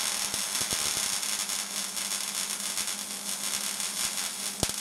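MIG welding arc crackling steadily as wire is fed into the weld, over a faint low hum, with one sharp click near the end.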